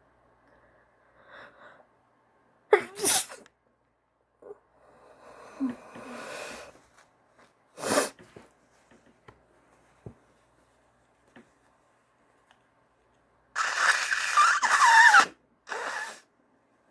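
A woman sneezing from allergies: a sharp sneeze about three seconds in and another about eight seconds in, with a breathy drawn-out build-up between them. Near the end comes a longer, louder noisy burst, then one short one.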